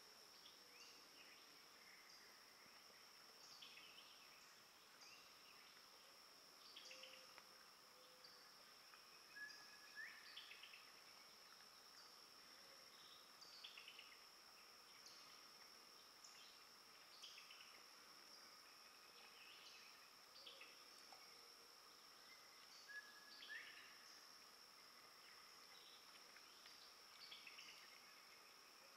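Faint woodland insect drone, one steady high tone that dips briefly now and then, with short chirps scattered through and two rising calls, one about a third of the way in and one near the end.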